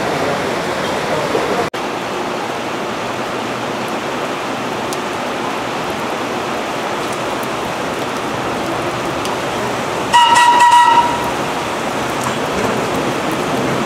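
Steady heavy rain hiss as a vintage New York subway train approaches. About ten seconds in, the train sounds one horn blast lasting about a second.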